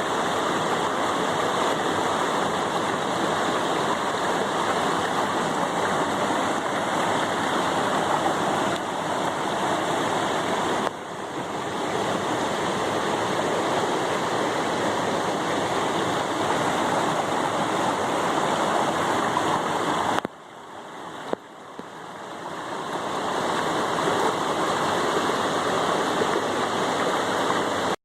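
Steady rush of fast-flowing water, as from a waterfall or rapids. It drops away suddenly twice, about eleven and twenty seconds in, and swells back up each time.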